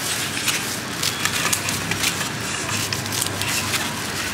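Kitchen scissors snipping food and plastic-gloved hands handling it, a run of irregular short clicks and crackles over a steady background of street noise.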